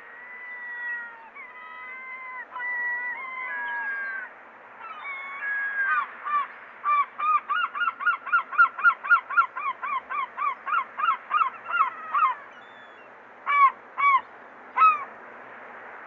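A gull giving its long call: a few long drawn-out notes, then a fast run of about twenty short down-slurred notes at roughly three a second, and three louder single calls near the end.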